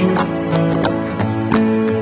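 Background music: a melody of plucked string notes over a steady beat.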